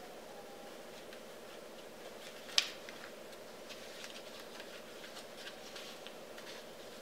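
A sheet of coloured paper being folded and creased by hand: a sharp tap about two and a half seconds in, then faint crackles and rustles of the paper for a few seconds, over a steady low hum.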